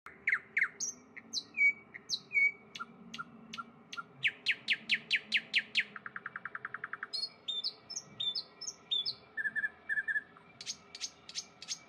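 Rainforest bird calls: a mix of sharp chirps and downward-sweeping whistles, with a run of quick descending notes and a fast, even trill about six seconds in.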